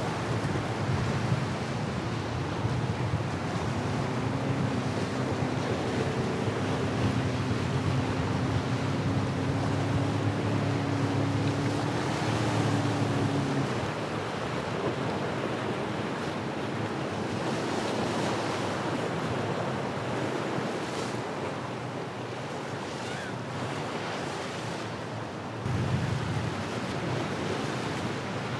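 Wind buffeting the microphone over the rush of surf and breaking waves. A boat engine drones as one steady tone, rising slightly in pitch, through the first half and then cuts off abruptly.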